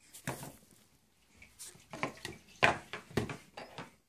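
Light knocks and clatter of plastic bath things, a cup and a bottle, handled at a kitchen sink: about half a dozen separate taps spread over a few seconds.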